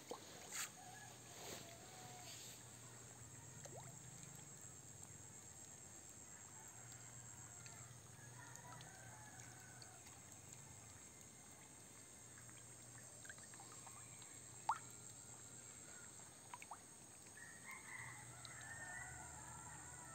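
Near silence: faint outdoor background with a low hum and a few light clicks, one sharper click near the three-quarter mark.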